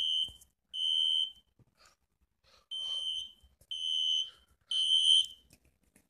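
Smoke alarm sounding in the temporal-three pattern: high-pitched beeps about a second apart in groups of three, with a pause of over a second between groups. Two beeps end one group, then after the pause a full group of three sounds. This is the standard evacuation signal, here set off by smoke.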